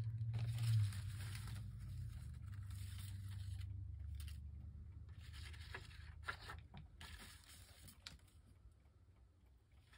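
Paper pieces being handled in short bouts of rustling and scraping, with a few light clicks, over a low hum that fades during the first few seconds.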